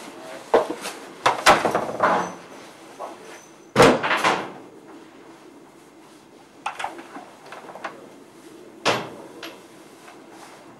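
A door opening and shutting, with clicks and knocks from the latch and handle; the loudest bang comes about four seconds in, and another sharp knock about nine seconds in.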